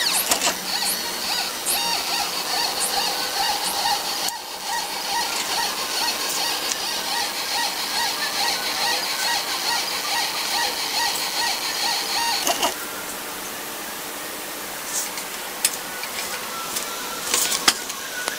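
Stepper motors of an Arduino-driven CNC plotter whining and buzzing as they drive the axes, with a steady high whine and a pulsing mid-pitched tone; the motors stop about two-thirds of the way in, leaving a steady hiss with a few clicks.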